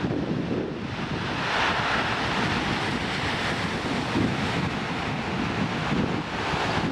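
Passenger train rolling past at speed: a steady rushing rumble of wheels and air, with wind buffeting the microphone.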